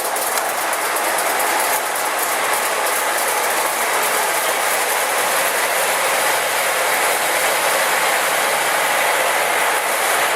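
Crane-Simplex Model 5's 564 cubic inch flathead inline-six engine running, with a rapid, even mechanical clatter.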